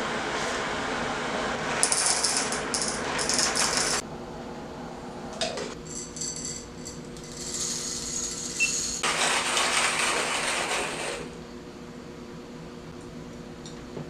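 Whole coffee beans poured from a box into a stainless steel cup, rattling against the metal. Then quieter clinks and rustling as the hand grinder and cups are handled.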